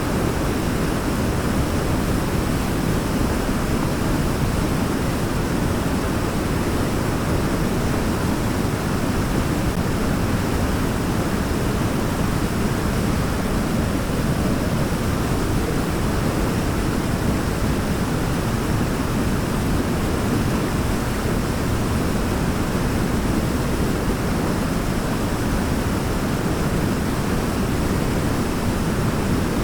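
Waterfall: a steady, unbroken rush of falling water, deepest and strongest in the low range.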